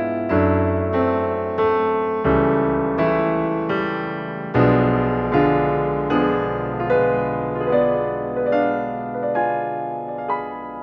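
Background piano music: notes and chords struck every half second or so, each fading away after it is struck.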